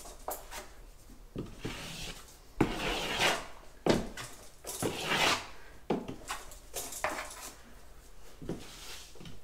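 Six-inch steel drywall knife scraping joint compound onto and down drywall: a series of short scraping strokes, with a few sharp clicks of the blade.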